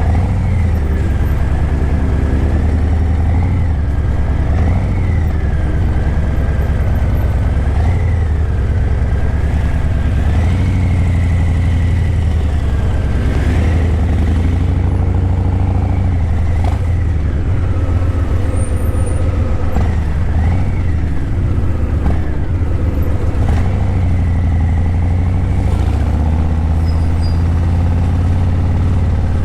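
2023 Harley-Davidson Breakout 117's Milwaukee-Eight 117 V-twin running at low revs through Vance & Hines Eliminator 300 slip-on mufflers. It is a steady deep rumble whose pitch rises and falls gently with the throttle while riding.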